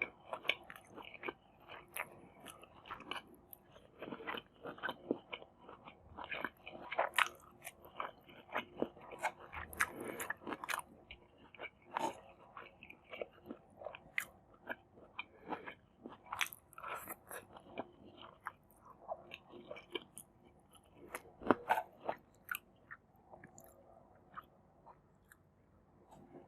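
Close-up eating sounds: a person biting and chewing a meal of Maggi masala noodles with egg and raw vegetables, in irregular, crisp, crunchy chews. The chewing grows sparser and quieter near the end.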